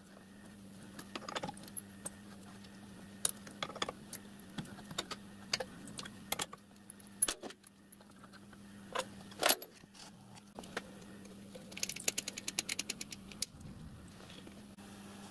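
Steel lathe chucks and a chuck key being handled: scattered metal clinks and knocks as the jaws are worked by hand, with a quick run of light clicks near the end.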